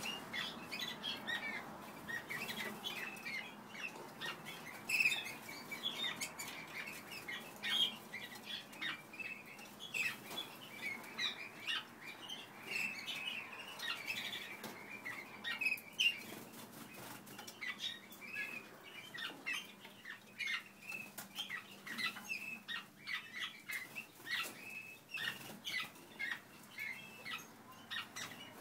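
A flight of German Roller canaries singing together: many short notes and trills overlapping without a break.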